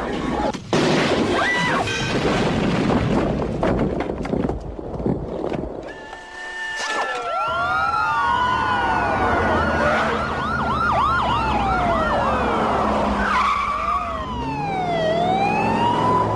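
A dense jumble of crashes and impacts, then from about seven seconds in several police car sirens wailing and yelping over one another, fast up-and-down sweeps mixed with slower long rises and falls.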